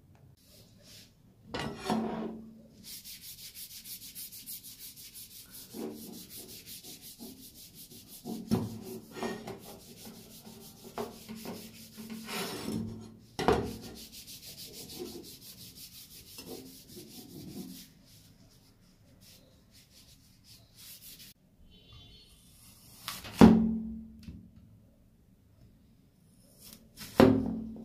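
Hand rubbing on the cleaver's wooden handle: a steady scratchy rubbing broken by a few knocks. Near the end come two heavy chops of the cleaver blade cutting through an apple onto a wooden board.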